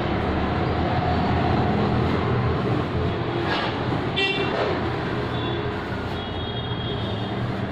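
Steady rumble of passing vehicles, with a short high horn toot about four seconds in.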